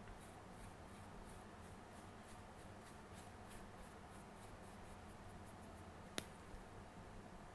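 Faint, repeated soft strokes of a paintbrush laying a wet coffee wash across cardstock paper, about two to three strokes a second, over a low steady room hum. A single sharp click about six seconds in.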